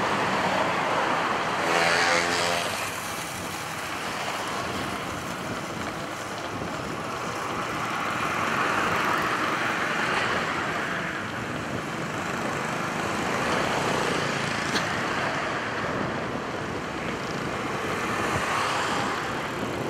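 Road traffic passing, with cars and motorbikes swelling up and fading away several times. A vehicle engine with a distinct pitch passes close about two seconds in.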